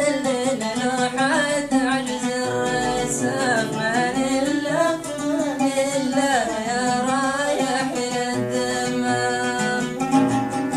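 A solo voice singing a melismatic melody with long pitch glides, over held instrumental notes; plucked string notes come in near the end.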